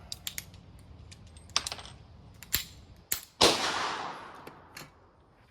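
Small metallic clicks of pistols and magazines being handled, then a single loud gunshot a little past three seconds in, with a long echoing tail that dies away over about a second and a half.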